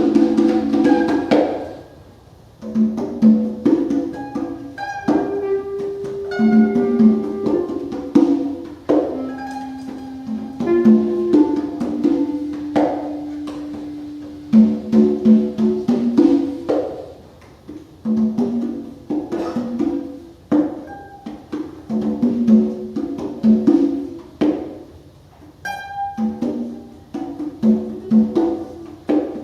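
Free-improvised music: congas played by hand in quick, uneven strokes, with long held notes from a melodic instrument and a few plucked notes. The drumming thins out around 2 s and again in the middle, then comes back busy.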